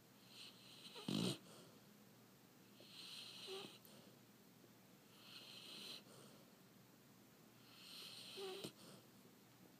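Faint snoring in slow, even breaths, about one every two and a half seconds, four in all, with one brief, much louder burst about a second in.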